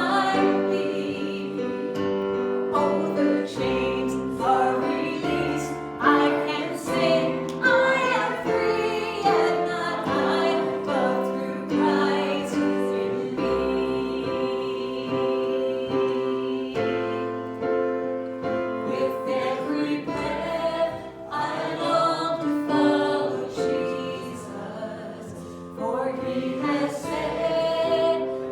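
Congregation or choir singing a slow hymn with keyboard accompaniment, long held notes.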